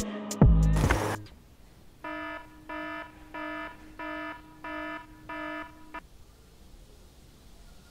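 Smartphone alarm going off: six short beeps, each a chord of several tones, about one and a half a second, stopping about six seconds in. Before it, a music track with drum hits ends about a second in.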